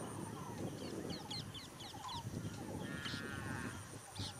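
Wild birds calling: many quick high chirps and short repeated calls, with a longer pitched call about three seconds in, over a low rumbling noise.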